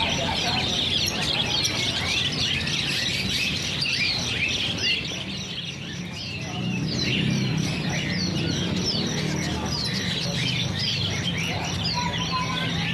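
Many caged birds chirping together: a dense, continuous chorus of short, falling chirps, over a low steady hum.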